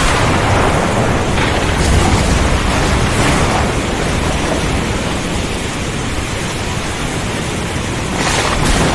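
Heavy rain and strong wind of a thunderstorm: a loud, steady, dense hiss under a low rumble of thunder that is heaviest in the first few seconds, with a few brief gusty swells.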